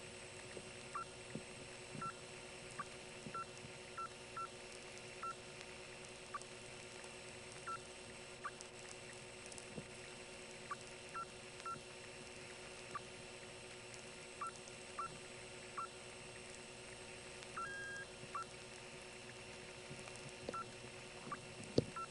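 Faint short high squeals chirping at irregular intervals, about one or two a second, on an open 1977 analog telephone line from an XY step-by-step exchange, over a steady low hum and a few faint clicks. The squeals are noises in the power supply or on the line, as the case may be.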